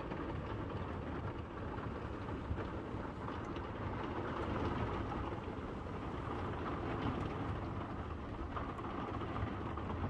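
Steady rushing noise of heavy rain and a swollen river in flood.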